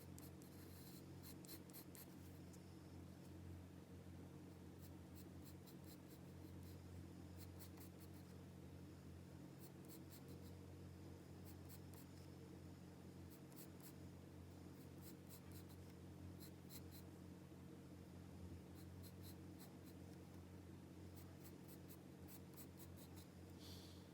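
Pencil drawing on paper: faint, quick scratchy strokes in short runs with brief pauses between them, over a steady low hum.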